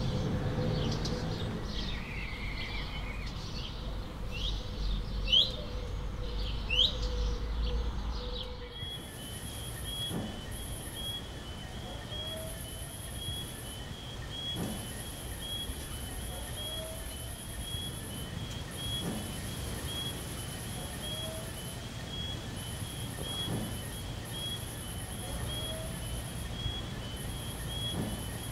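Birds chirping with a low rumble underneath for the first eight or nine seconds. Then it changes abruptly to night ambience: a high-pitched insect trill switching on and off, a steady train of short chirps, and a short rising call repeating about every two seconds.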